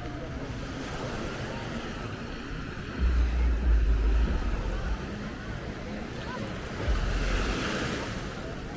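Surf washing onto the beach, with a wave breaking and spreading near the end. Wind buffets the microphone in gusts, about three seconds in and again near the end.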